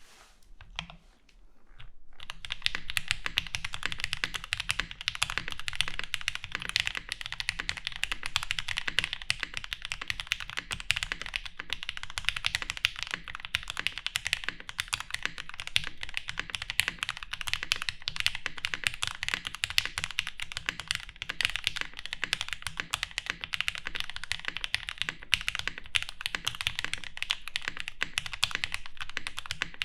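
Fast continuous typing on a Hex 4B plateless 75% custom mechanical keyboard with a soldered PCB, lubed and filmed switches and GMK keycaps. The typing starts about two seconds in as a dense stream of key strikes.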